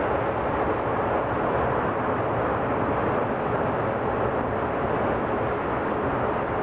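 Loaded open freight wagons of a long freight train rolling past: a steady, even noise of steel wheels running on the rails.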